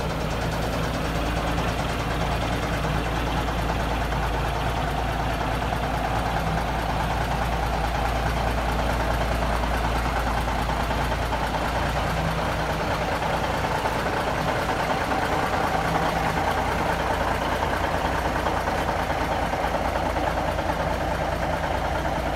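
1971 Kenworth W923A truck's diesel engine idling steadily.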